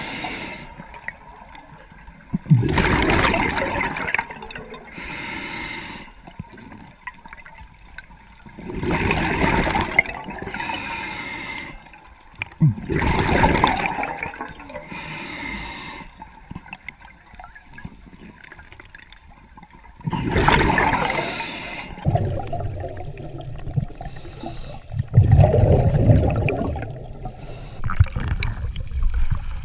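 A scuba diver breathing underwater: bursts of regulator breath noise and rushing, gurgling exhaled bubbles, repeating about every four to six seconds, with a heavier, deeper rush of water near the end.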